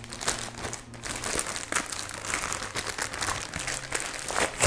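Packaging wrap crinkling and rustling as it is pulled off the legs of a C-stand that was just cut open, with many small irregular crackles.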